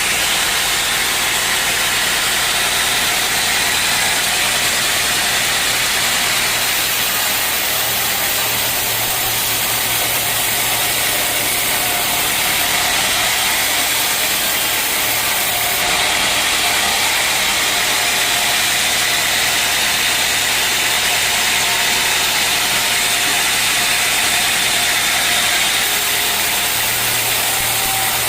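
Sawmill machinery running steadily: a continuous loud, even noise with a low hum underneath and no breaks.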